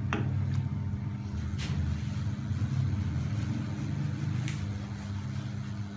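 Steady low hum and rumble of a lit gas stove burner, with three sharp clinks as the metal pan of rice is shaken and knocked against the burner grate.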